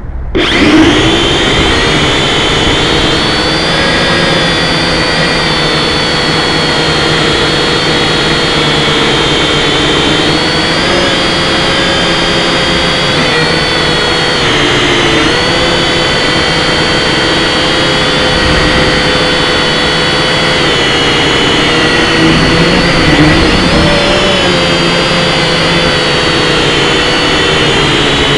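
Aircraft engines running steadily in flight, heard from inside the cabin: a constant loud drone with a high whine on top that wavers slightly in pitch.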